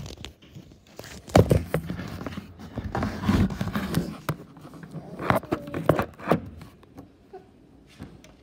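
Handling noise from a handheld phone: irregular bumps, knocks and rubbing as it is moved about and hair and hands brush over the microphone. The loudest bumps come about a second and a half in and again around five to six seconds in.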